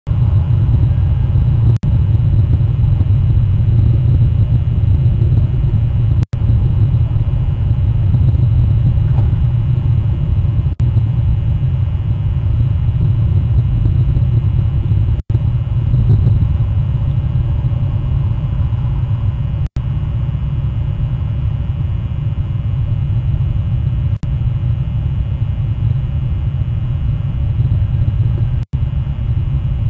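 Steady low rumble on a wildlife webcam's live audio feed, cut by brief dropouts at even spacing about every four and a half seconds.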